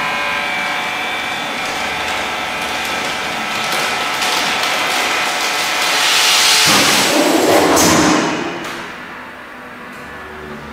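External-nozzle vacuum packing machine running: its vacuum pump hums steadily with a hiss as it draws the air out of a large bag on a carton. About seven seconds in, a louder rush of air lasts a second or two. It then settles to a quieter steady running.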